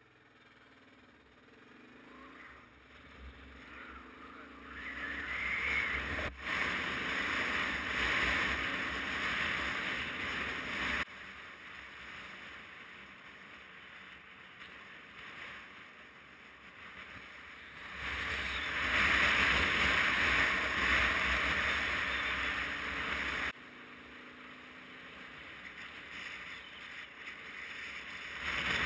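Riding noise from a motorcycle on the move: wind rushing over the bike-mounted camera's microphone, with the engine underneath. The rush swells for two stretches and cuts off suddenly each time, about 11 and 23 seconds in.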